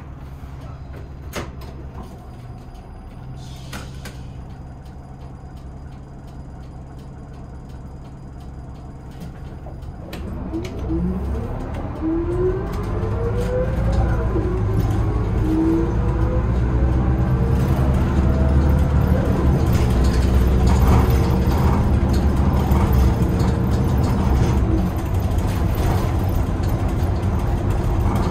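Hino Rainbow II bus engine heard from inside the cabin: running low and steady at first, then from about ten seconds in building up under acceleration, its pitch rising and dropping back several times as the automatic transmission shifts up, growing louder.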